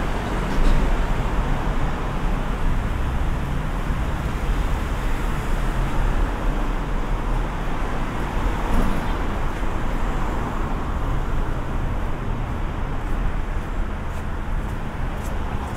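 Steady city street traffic noise: a continuous low rumble and hiss of road vehicles, even throughout.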